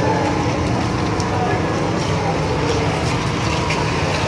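Street noise of a procession crowd: many people talking indistinctly over a steady low engine hum.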